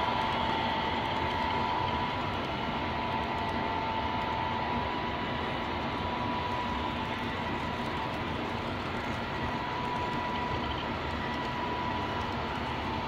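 Model freight train rolling past on the layout's track: a steady running noise of wheels on rail, with a thin steady whine above it.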